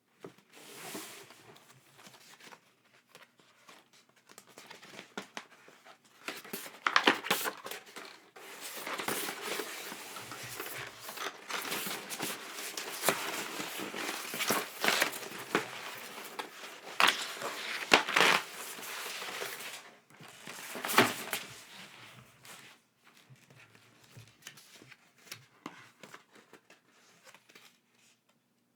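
Packaging crinkling and tearing as it is handled and unwrapped, with sharp crackles; busiest through the middle, sparser near the start and end.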